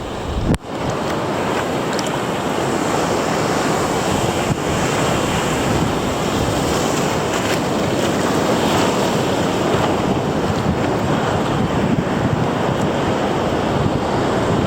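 Ocean surf rushing steadily on a beach, with wind buffeting the microphone.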